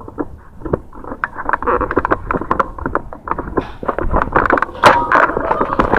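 Wind buffeting the microphone with a low rumble, under a run of quick clicks, knocks and rustles from the camera being handled and carried, growing louder near the end.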